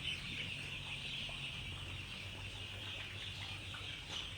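A brooder full of young broiler chicks peeping together as a steady, high-pitched chatter of many overlapping calls.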